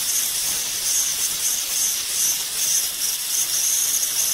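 Handheld gas blowtorch burning with a steady hiss, its flame heating an engine bearing holder so that a crankshaft bearing can be fitted.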